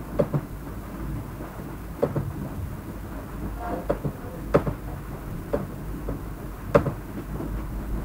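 Computer mouse clicking, about eight sharp clicks with some in quick pairs, over a low steady background hum.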